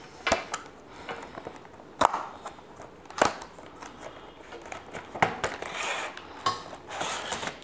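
A cardboard retail box for neckband earphones being opened by hand: scattered rustling of the packaging with several sharp clicks and knocks, the loudest about two and three seconds in.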